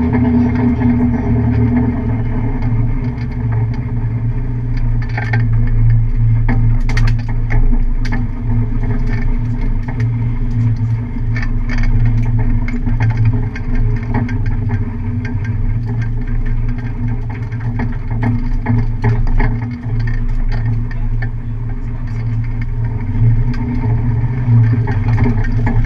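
Car engine running at a steady low speed with no revving, along with scattered short clicks and rattles.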